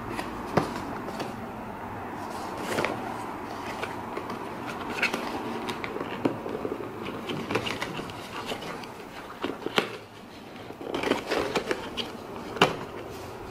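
Unboxing handling noise: the action camera's clear plastic waterproof housing and mount knocking and scraping against the cardboard box insert, with scattered clicks and rustles and a few sharper knocks, over a steady background hiss.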